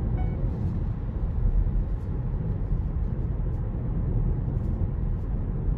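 Steady low rumble of a vehicle in motion, road and engine noise with no changes in pitch.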